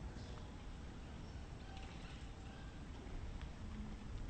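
Quiet sports-hall ambience with faint distant voices; no ball strikes are heard.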